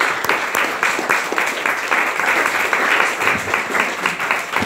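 Audience applauding: many people clapping at once, dying down near the end.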